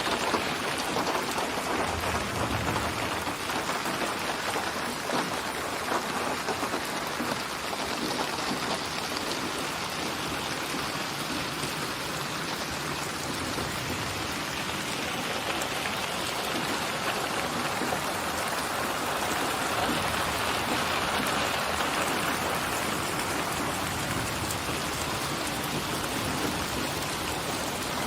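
Steady rain falling, an even hiss of many fine drops hitting a surface.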